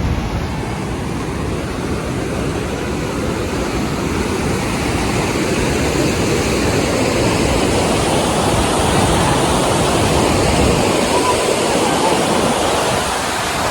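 Fast-flowing water rushing steadily and loudly, growing a little louder over the first several seconds.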